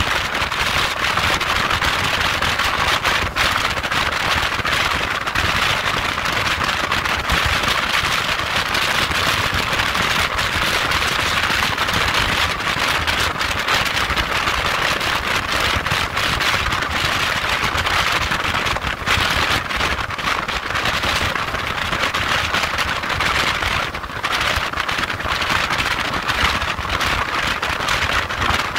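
Motorcycle cruising at motorway speed: a steady rush of wind buffeting the microphone, with an irregular crackle through it and road noise underneath.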